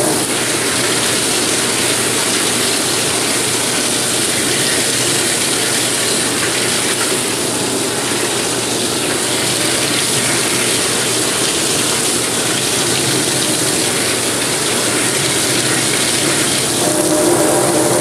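Steady hiss of a faucet sprayer's hot water jet hitting a dusty finned refrigeration coil and splashing into a stainless steel sink. The water is sprayed through the coil backwards to wash the packed dust out of the fins.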